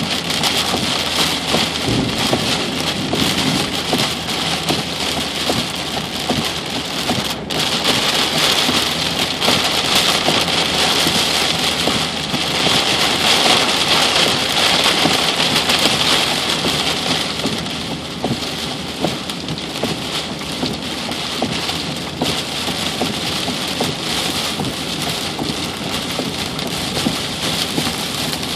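Heavy rain pelting down in a thunderstorm, a dense steady hiss that swells for a while midway.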